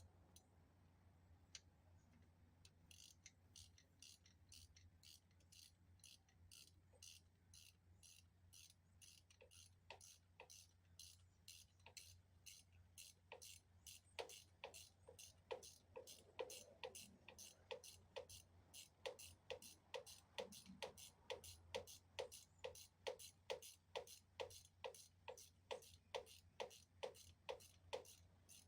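Faint, regular mechanical clicking, about two clicks a second, growing louder about halfway through.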